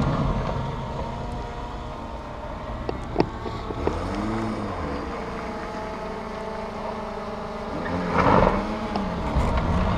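Suzuki Samurai's petrol engine working on a steep sandy off-road slope, revving up and back down twice. A loud rush of noise comes about eight seconds in.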